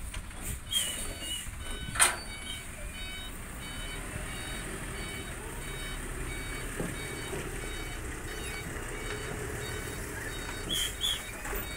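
Dump truck's diesel engine running low and steady on a slippery mud track, with an electronic warning beeper repeating short beeps. There is a sharp knock about two seconds in.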